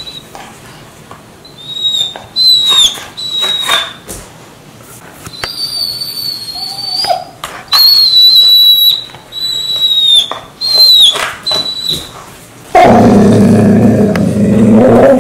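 Golden retriever whining with a slipper in its mouth, its way of waking its owner in the morning: a string of high, thin, whistle-like whines, each held from half a second to about two seconds, several ending in a quick pitch flick. For the last two seconds or so a loud, low, rough noise takes over.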